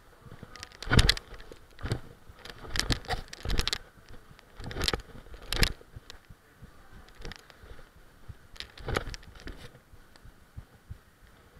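Thuds of footfalls, landings and hand contacts on gym mats and wooden vault boxes during parkour moves, picked up by a chest-mounted camera, with clothing rubbing and scraping against the mount. The thuds come irregularly; the loudest is about a second in, with a quick run of them around three seconds in.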